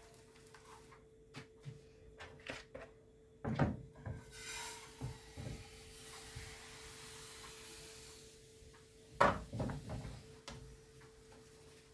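Kitchen handling: scattered knocks and clatter of utensils and cookware, two of them louder, about three and a half seconds and nine seconds in, with a soft hiss for several seconds between them and a faint steady hum underneath.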